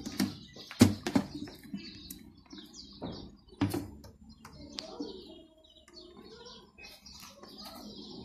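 A few sharp knocks and taps from a metal tin and a hot glue gun being handled on a table, with birds chirping in the background.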